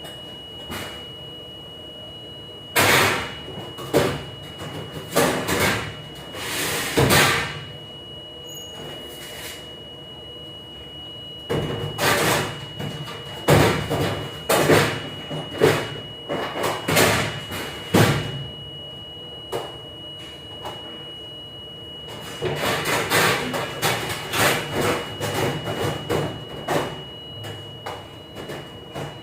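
Dishwashing work in a ship's galley: dishes, racks and trays clattering and banging in irregular bursts, over the steady running of machinery with a constant high whine.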